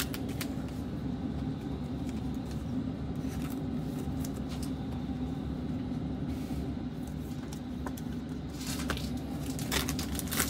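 Steady low background hum, with faint clicks of trading cards being handled; a plastic card-pack wrapper crinkles in the hands near the end.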